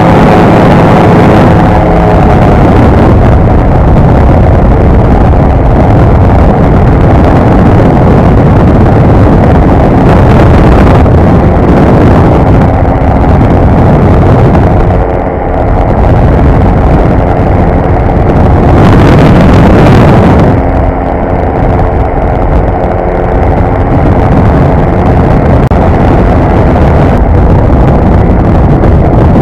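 Quik GT450 flexwing microlight's Rotax 912 engine and propeller running at take-off power through the ground roll and climb-out, with heavy wind rush over the microphone. The sound is loud and steady, with two brief dips about halfway through and two-thirds through.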